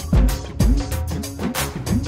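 Electronic background music with a steady heavy beat and sliding bass notes.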